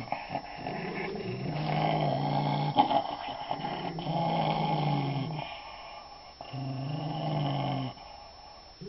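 A young dog growling low and long, in drawn-out growls with two short pauses near the end, guarding a piece of meat or bone from the other dog.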